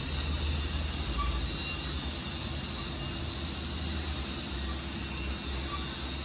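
A steady low rumble with a faint high-pitched hum over it, an even background noise with no distinct knocks.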